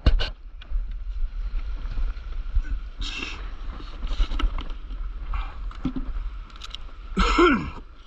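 Close handling noise from a camera on a stand-up paddleboard at the water's edge: a low steady rumble of wind on the microphone, a few knocks just after the start, and shallow surf washing over wet sand in short hissing washes. Near the end, a louder burst with a short falling tone.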